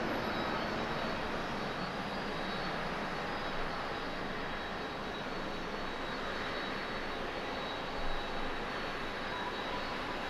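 Boeing 777-300ER's jet engines on final approach, a steady rushing hum with a faint high whine, with a brief bump about eight seconds in.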